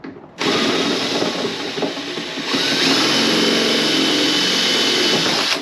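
Electric drill running under load, drilling out a steel pop rivet. It starts about half a second in, a steady high whine comes in about two and a half seconds in as the bit cuts, and it stops near the end.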